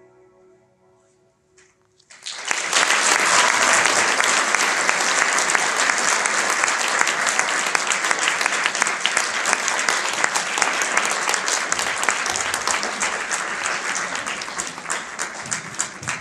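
Soft music fades away at the start. About two seconds in, an audience starts clapping and keeps up steady applause, easing off near the end.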